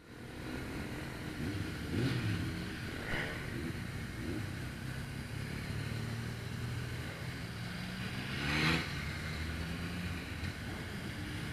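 Motorcycle engines running, with a bike revving louder about two seconds in and again near nine seconds, its pitch rising on the second rev.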